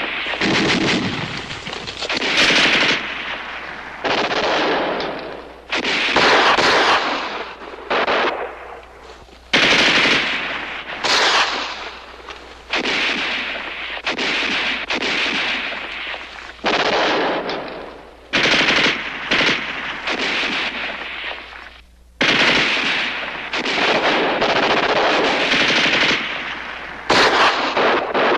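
Battle gunfire: bursts of automatic fire one after another, about a dozen in all, each a second or two long, with short gaps between.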